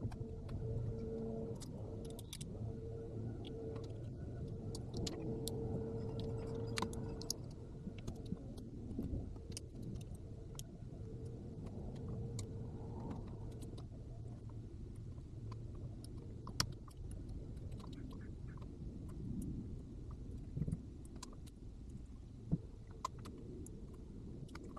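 Steady low hum with scattered light metallic clicks and clinks, as small parts and tools are handled.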